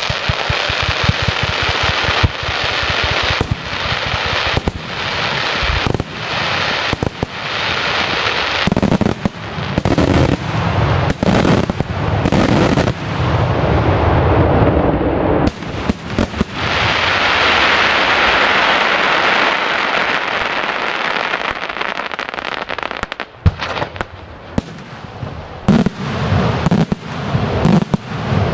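Daytime fireworks barrage: shells bursting into coloured smoke and many small puffs, with rapid volleys of crackling reports and heavy bangs. A string of separate loud bangs comes near the middle, then a long dense stretch of crackle.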